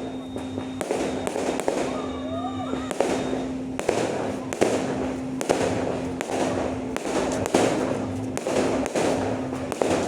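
Aerial fireworks bursting in quick, irregular succession: sharp bangs over continuous crackling.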